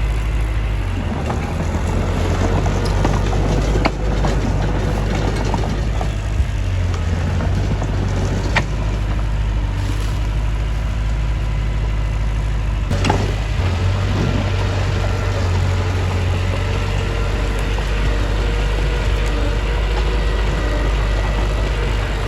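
Mitsubishi bulldozer's diesel engine running steadily while working, with a few sharp knocks scattered through.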